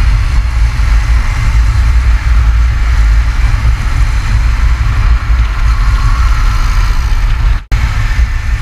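Wind buffeting the microphone of a motorcycle rider's helmet-mounted camera at riding speed, a heavy low rumble over the hum of the motorcycles. The sound cuts out for an instant near the end.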